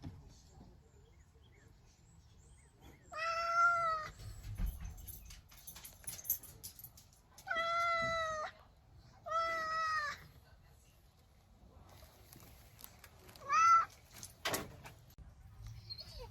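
Domestic cat meowing four times: three drawn-out meows of about a second each, then a short one.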